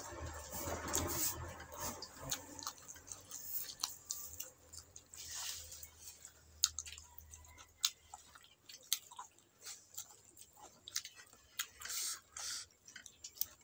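Close-up chewing and lip smacking of a person eating by hand, with many short wet mouth clicks.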